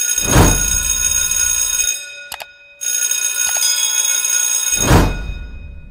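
Intro sound effects: a whoosh, then a bright shimmer of steady bell-like ringing tones. The ringing breaks off briefly with a couple of clicks at about two and a half seconds, comes back, and a louder second whoosh about five seconds in fades away.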